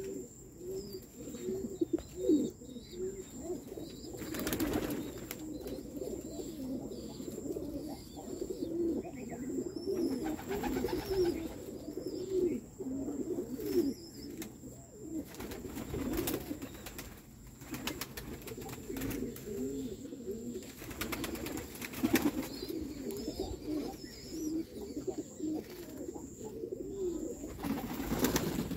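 A flock of domestic fancy pigeons cooing continuously, many birds calling over one another. A few brief bursts of noise break in, the loudest about 22 seconds in.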